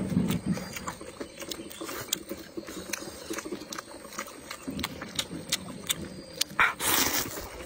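Close-up eating sounds: wet chewing and lip smacking on rice noodles and shrimp, a steady run of small sharp clicks, then a louder slurp of noodles near the end.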